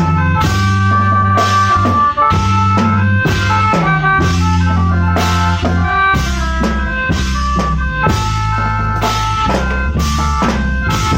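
Khaen wong band playing: the khaen's reed-organ tones held over a bass line, with a drum kit keeping a steady beat.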